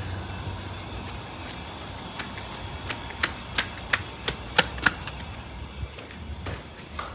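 A run of sharp, irregular clicks and taps, about a dozen between two and five seconds in, over a low steady hum.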